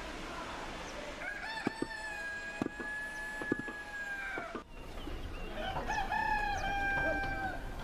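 A rooster crowing twice, each crow a long held call, with a few sharp knocks during the first crow.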